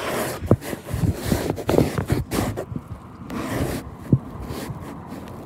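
Muffled handling noise from a recorder shut inside a fabric bag: cloth rubbing over the microphone, with irregular soft knocks and bumps as the bag moves.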